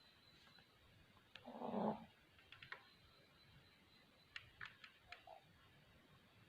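A sleeping puppy snoring: one drawn-out snoring breath about a second and a half in, followed by a few faint short clicks.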